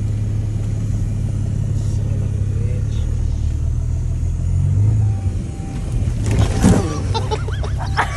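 Off-road wrecker truck's engine running steadily, its note shifting about five seconds in. About six and a half seconds in comes a short burst of noise as the truck is leaned into a snow-laden tree limb, followed by high-pitched cries.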